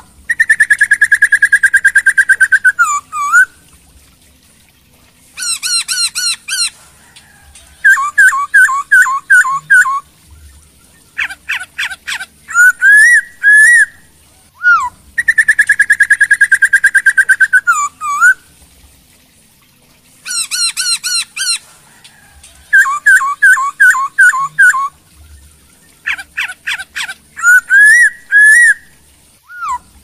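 Black-throated laughingthrush in full song: a long warbled whistle followed by runs of quick swooping notes, in loud phrases with short pauses between them, the same sequence of phrases coming round twice.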